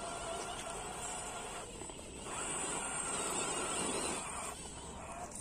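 Electric motor and gearbox whine of a 1/10-scale RC crawler truck climbing a rock slab, pausing briefly about two seconds in and again near the end as the throttle is let off.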